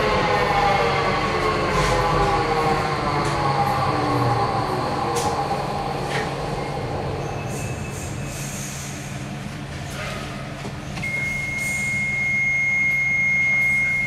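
Docklands Light Railway train's electric traction motors whining down in pitch as it brakes to a stop in a tunnel station, with a few sharp clicks. A steady high tone sounds for the last three seconds.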